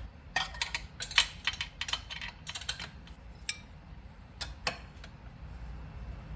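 Light metallic clicks and taps of hex keys working the rack's mounting bolts: a quick run of clicks for the first few seconds, then a few single clicks.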